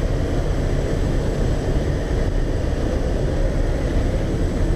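Steady loud rush of wind and aircraft engine noise through the open door of a small jump plane in flight, buffeting the microphone.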